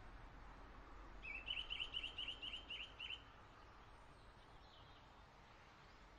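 Faint outdoor ambience with a wild bird calling a quick run of short chirps, about five a second, for about two seconds starting a second in.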